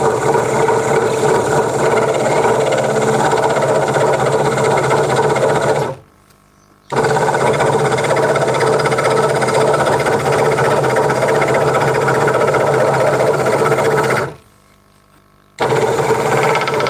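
Craftsman 22-inch scroll saw running steadily, its blade cutting through a small piece of wood. The sound drops out abruptly for about a second twice, around six and fourteen seconds in.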